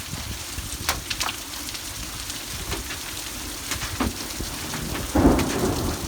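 Thunderstorm rain falling steadily, with sharp individual drops hitting close by. A short, louder burst of thunder comes about five seconds in.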